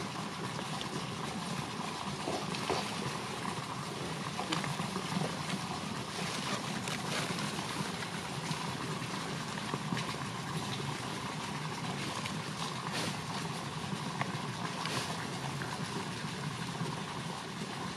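Steady background hiss with faint rustling and small snaps of leaf litter and stems as small white wild mushrooms are plucked by hand.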